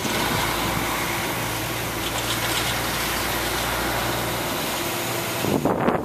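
Pickup-truck snowplow's engine running steadily, a low hum under a broad, even rush of noise. Gusts of wind buffet the microphone near the end.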